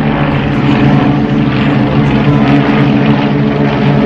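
Propeller-driven aerobatic aircraft's piston engine running loudly and steadily, a continuous propeller drone.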